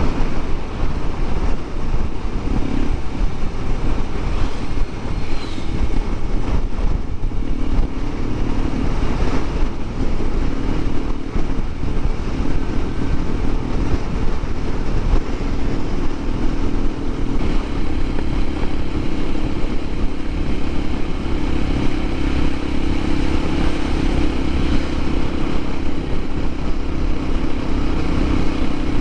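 Honda CT125 Hunter Cub's air-cooled single-cylinder engine running steadily under way, mixed with heavy wind noise. Its engine note comes through more clearly partway through.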